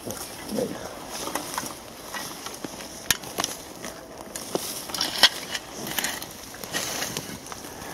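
Shovel digging into forest soil: the blade chops and scrapes through earth and roots, with several sharp knocks and rustling dry leaves.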